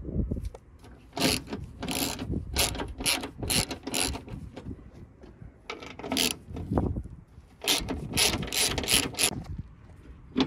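Socket ratchet wrench clicking as it backs out the radiator's top mounting bolts, in two runs of quick clicks with a pause between.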